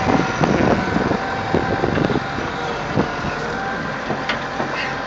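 Excavator's diesel engine running steadily while the machine is worked, with a couple of sharp knocks.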